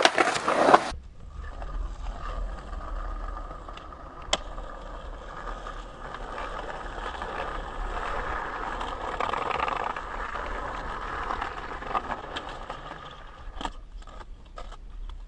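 Skateboard wheels rolling over concrete pavement with a steady rough rumble, after a burst of sharp board clacks in the first second. A few separate clacks of the board come near the end.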